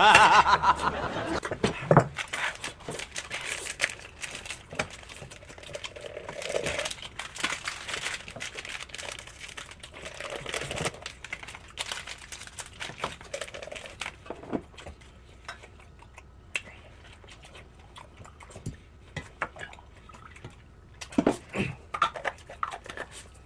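Scattered clinks and knocks of dishes and eating utensils being handled at a meal table, with some soft rustling; busier in the first half, sparser later.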